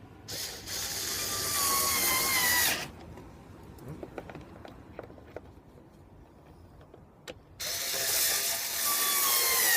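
Cordless drill-driver running screws into the air filter housing cover, two separate runs of motor whine each about two and a half seconds long, the pitch dropping slightly as each screw tightens down. A few small clicks and knocks between the runs.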